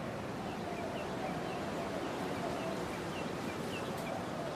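Faint, short bird chirps repeating about three times a second over a steady background hiss, with a low wavering tone underneath.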